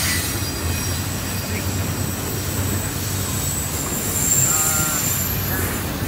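Double-stack container well cars of a freight train rolling past: a steady rumble of steel wheels on the rails, with thin, high-pitched wheel squeal that grows louder about four seconds in.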